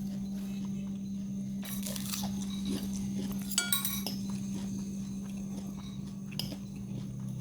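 Eating sounds: scattered crunches and clicks, with a ringing clink of a utensil against a dish a little over three and a half seconds in, over a steady low hum.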